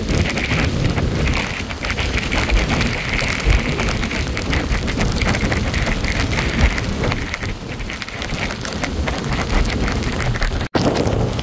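Rough tropical-storm surf breaking and washing up the shore, a steady rushing noise with wind rumble on the microphone. The sound breaks off for an instant near the end.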